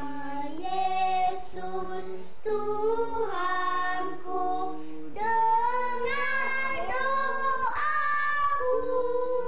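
A young child singing a song in long held notes.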